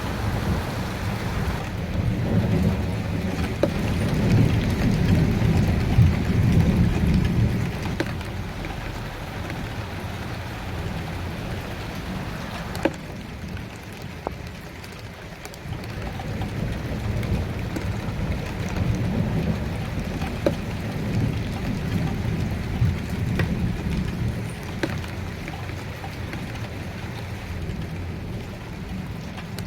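Steady rain with scattered close drop taps, and low rolling thunder that swells twice: a few seconds in and again about halfway through.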